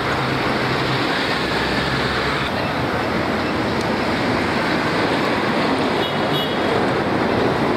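Street traffic: motor scooters and three-wheelers running past, a steady din of engines and tyres, with a low engine hum in the first couple of seconds.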